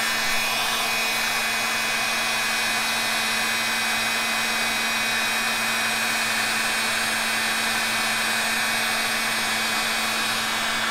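Porter-Cable heat gun running steadily: an even rush of blown air over a constant low hum.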